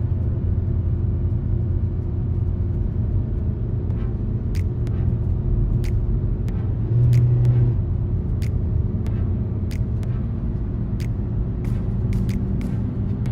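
Steady low rumble of a car on the road, with scattered small clicks and a brief louder swell in the rumble about seven seconds in.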